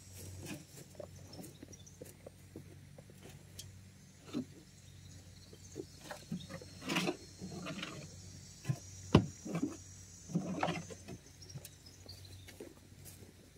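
Scattered rustles and knocks, with one sharp knock about nine seconds in, over a faint steady high drone of insects.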